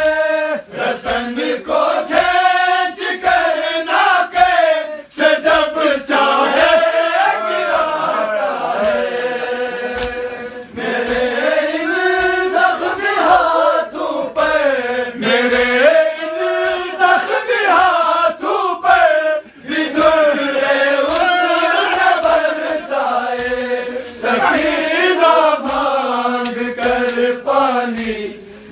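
Men's voices chanting a noha, a Muharram lament, together in a slow melody that rises and falls in long phrases, with sharp beats keeping time.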